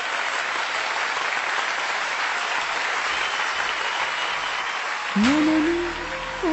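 Audience applauding steadily. About five seconds in, a singing voice comes in on a held note that slides up into pitch.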